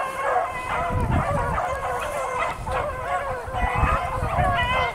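A pack of beagles baying together on a rabbit's trail, many voices overlapping without a break: the hounds in full cry on the scent.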